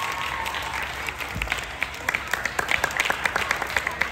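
A small group of children applauding with many quick hand claps, which grow louder and denser about halfway through.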